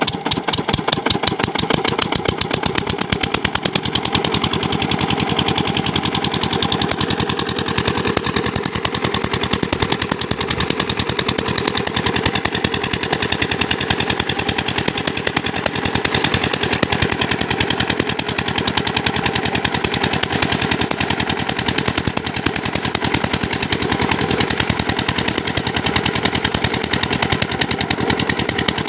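Small single-cylinder diesel water-pump engine (8 hp) running steadily under load, its exhaust beating in a fast, even stream of pops while it pumps water.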